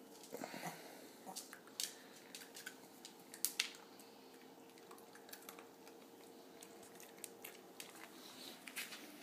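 Small dog chewing a treat: scattered sharp crunches and clicks, a loud pair about three and a half seconds in, over a faint steady hum.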